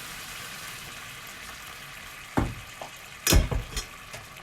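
Cream sauce sizzling steadily in a frying pan, with two knocks of a stirring utensil against the pan, the louder one a little over three seconds in.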